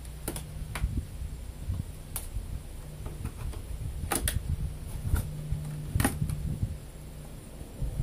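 Wooden Langstroth hive frames knocking and clicking against the hive box as they are shifted by hand: a series of sharp, irregular clicks, about seven, over a low, uneven hum.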